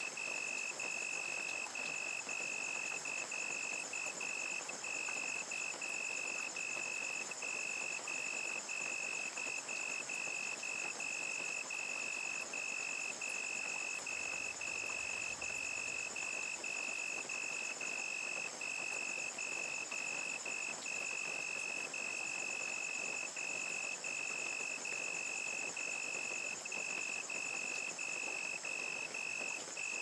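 Crickets trilling without let-up, a high-pitched chirring broken by short pauses, over the steady hiss of falling rain.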